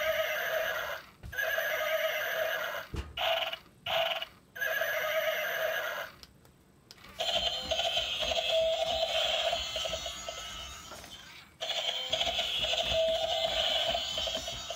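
Battery walking unicorn toy (Pitter Patter Pets walking unicorn) in demo mode, its small speaker playing tinny electronic sound effects with neighing. The effects come in several short bursts over the first six seconds, then in two longer stretches from about seven seconds as the toy walks.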